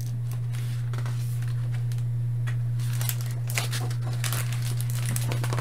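Paper rustling and crinkling in a series of short bursts as the stiff pages of a hardcover picture book are turned, over a steady low hum.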